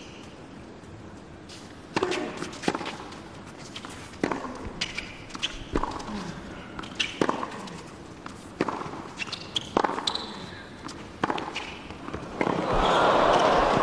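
A tennis rally on a hard court: a racket serve about two seconds in, then racket strikes and ball bounces roughly once a second. Near the end the crowd cheers loudly as the point ends.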